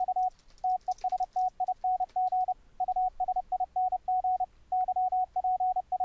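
Morse code sent by the YPLog software CW keyer through a computer sound card at about 30 words per minute: one steady mid-pitched tone keyed into dots and dashes, with short gaps between characters and words. The keyer shapes each element with an exponential rise and fall.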